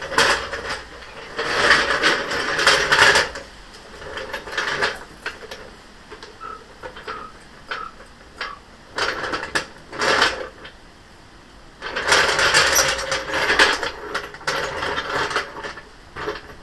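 Bursts of metallic rattling and clicking from tools and parts during work on the car, four bouts of a second or a few seconds each with short pauses between.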